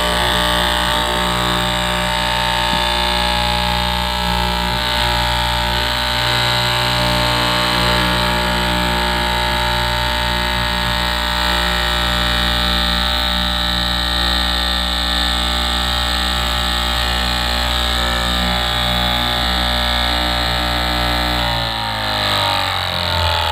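Electric straight-knife cloth cutting machine running steadily, its reciprocating blade cutting through a thick stack of fabric layers. The motor's hum drops in pitch near the end.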